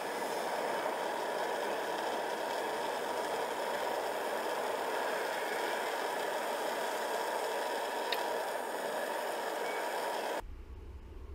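Portable gas burner running with a steady hiss, which cuts off abruptly near the end, leaving a faint low hum.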